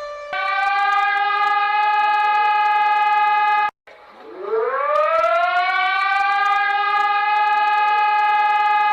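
Civil defense siren sounding a steady tone that cuts off suddenly a little under four seconds in. After a brief gap a siren winds up from a low pitch, rising over about two seconds to a steady high tone that it holds.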